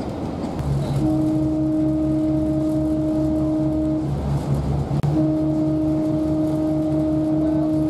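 A train's air horn sounding one low, steady note in two long blasts: about three seconds, a short pause, then a second blast that is still going at the end. A low pulsing rumble runs underneath.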